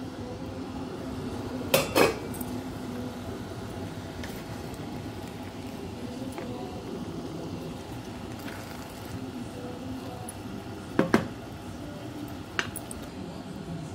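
Cookware clanking: a stainless steel lid and frying pan knocked together twice about two seconds in, twice more about eleven seconds in, with a lighter clink just after. A steady low hum runs underneath.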